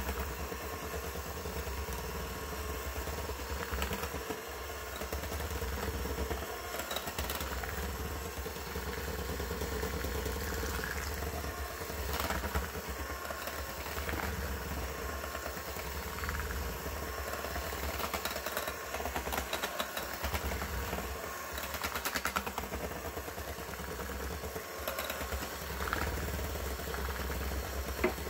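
Electric hand mixer running steadily, its twin beaters whirring through creamed butter, sugar and eggs in a glass bowl, with a few brief clicks along the way.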